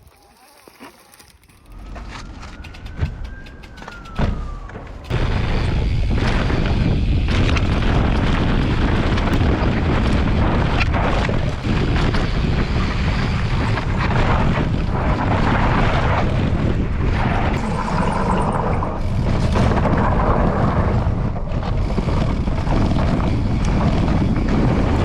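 Loud wind buffeting on the microphone, mixed with the rattle and knocks of an electric mountain bike riding over loose rocky trail. It starts abruptly about five seconds in. Before that there is a brief whine that rises and then falls in pitch.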